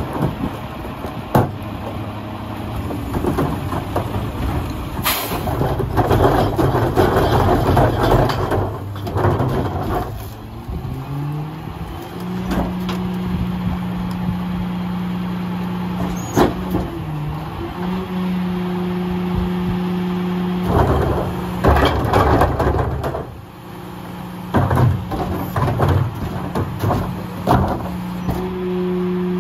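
Mack LR garbage truck's diesel engine running, then speeding up to a higher steady pitch about a third of the way in as the McNeilus rear loader's hydraulic cart tipper and packer are worked. The engine dips briefly and comes back up. Several stretches of clatter and bangs come from carts and trash being dumped into the hopper.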